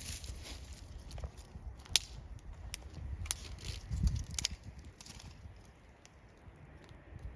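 Wood fire crackling, with a few sharp pops between about two and four and a half seconds in and a brief low rumble near four seconds. It settles to a quieter crackle near the end.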